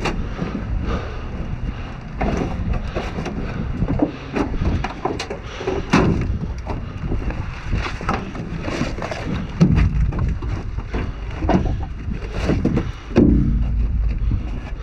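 Brittle trash and debris crunching, cracking and clattering as it is stepped on and pulled apart inside a dumpster: a run of irregular knocks and crackles.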